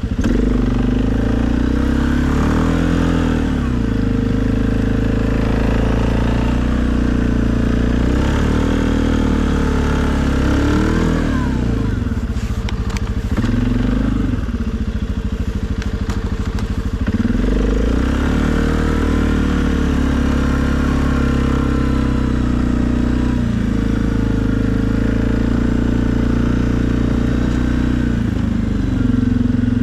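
2020 Suzuki KingQuad ATV engine running under load while plowing snow, its pitch rising and falling repeatedly with the throttle. About halfway through it drops to a lower note for a few seconds, then revs back up.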